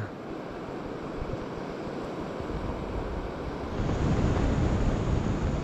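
Steady rush of river water, with wind buffeting the microphone as a low rumble that comes in about halfway through and grows louder.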